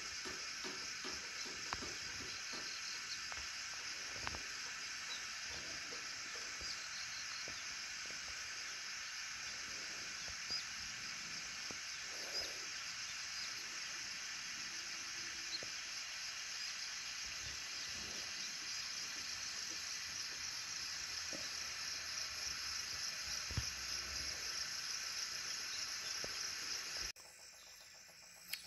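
A steady, dense, high-pitched chorus of insects, unbroken, with a few faint taps scattered through it; it cuts off suddenly about 27 seconds in.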